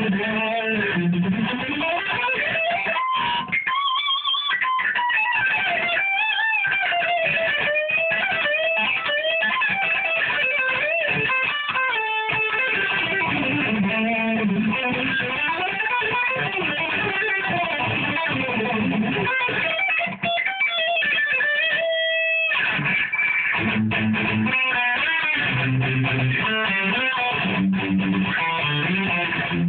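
Electric guitar played solo: quick lead runs with notes bent up and down, a note held for about a second a little past twenty seconds in, then lower, choppier notes over the last several seconds.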